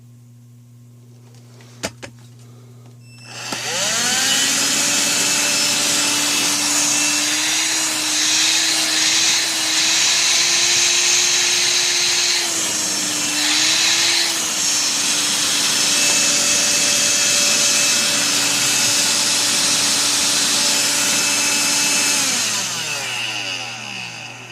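Electrolux ZB3113 18V cordless stick vacuum running on a freshly replaced lithium battery pack. About two seconds in the switch clicks, then the motor spins up with a rising whine and runs loud and steady, its pitch wavering briefly a couple of times. Near the end it winds down with a falling whine.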